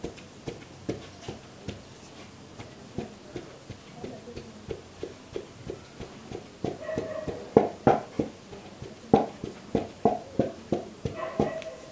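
Wooden pestle pounding mbika (ground seeds and spices) in a wooden mortar: dull, regular thuds about two to three a second, heavier in the second half.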